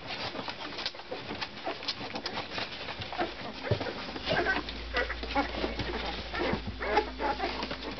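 Thirteen-day-old Labrador puppies nursing, making small irregular squeaks and soft cooing grunts amid clicking suckling and shuffling.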